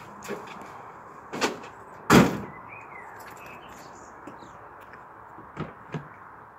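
A rubbish bag thrown into the bed of a pickup truck lands with one loud thud about two seconds in, after a lighter knock. Near the end come two light clicks from the truck's door being handled.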